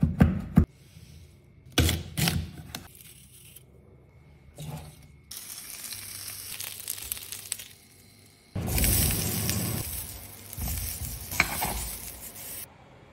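A knife chopping parsley on a wooden board, a handful of sharp strokes, then prosciutto sizzling in a frying pan. About eight seconds in, asparagus spears hit the hot pan and sear with a louder sizzle and a click of metal tongs.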